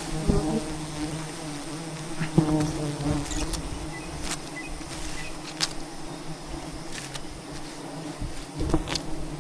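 A swarm of wild honeybees buzzing in a steady drone, swelling louder a few times, with several sharp clicks over it.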